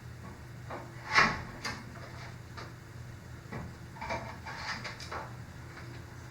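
Fishing rods being set into plastic rod holders on a garage door: a series of light clicks and knocks, the loudest about a second in, over a steady low hum.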